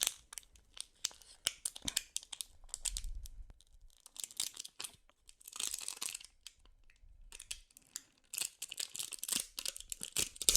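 Close-up, quiet tearing and crinkling in short scattered bursts with small clicks, from handling suama.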